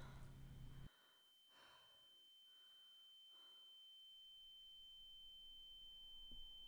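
Near silence: a few faint, soft breaths in the first half, over a faint steady high ringing tone.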